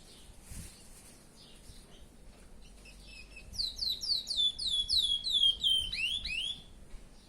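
Chestnut-bellied seed finch (curió) singing: after a few faint notes, a loud phrase of clear, downward-slurred whistled notes, about three a second, ending in a couple of rising notes.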